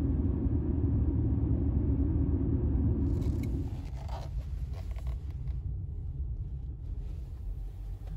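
A car driving, heard from inside the cabin: a steady low road rumble that drops off about four seconds in as the car slows into a parking lot. A few faint scrapes and clicks follow.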